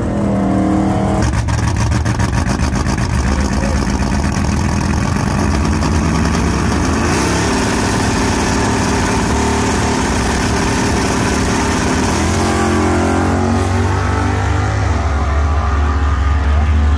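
Drag-racing V8s at the starting line: the 1974 GTO's 406 small-block Chevy idling and blipping while it stages beside a second car. About three-quarters of the way through, the engines rise in pitch as the cars launch and accelerate down the strip.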